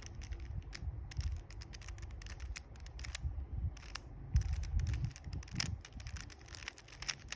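3x3 Rubik's Cube being turned by hand, its plastic layers clicking in an irregular quick run over soft handling rumble, as a solving algorithm is worked through.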